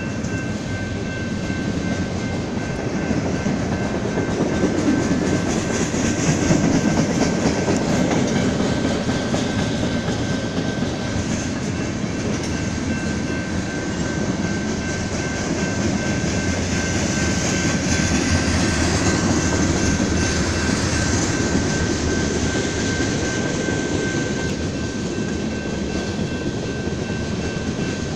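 Freight train cars (tank cars and covered hoppers) rolling past: a continuous rumble of steel wheels on the rails, swelling louder twice.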